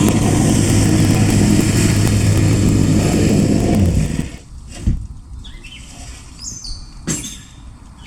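A vehicle engine running steadily, then switched off about four seconds in. Two sharp knocks follow in the quieter stretch, while birds chirp now and then.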